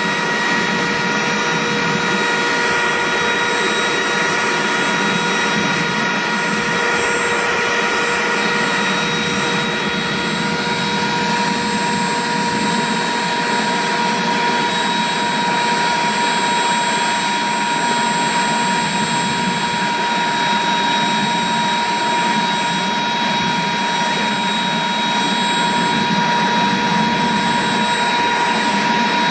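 Pirna GT028 gas turbine engine running at a constant speed: a loud, steady high whine over an even rushing noise.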